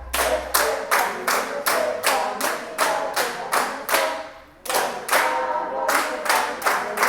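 Rhythmic hand clapping in a steady beat of about three to four claps a second, with voices singing along. The clapping breaks off briefly about four seconds in, then picks up again.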